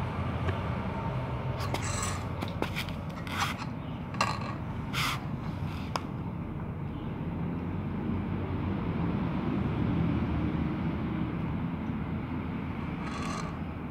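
Cats eating rice and fish from plastic tubs: a few short scrapes and clicks of chewing and tubs shifting, bunched between about two and five seconds in and once more near the end, over a steady low rumble.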